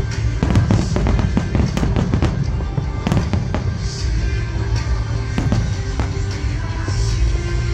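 Fireworks bursting and crackling, many bangs in quick succession, over loud music.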